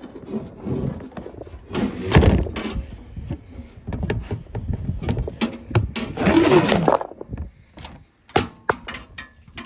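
Handling noise from taking apart a car heater box: clicks, knocks and scraping of its parts being handled and pulled apart. There are louder bursts of scraping about two seconds in and again around six to seven seconds.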